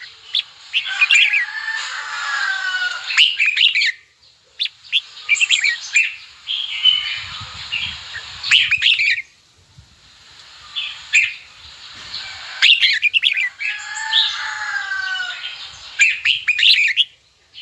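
Red-whiskered bulbul calling in bouts a few seconds long, with short breaks between them. Each bout is a run of rapid chattering notes over lower sliding whistles.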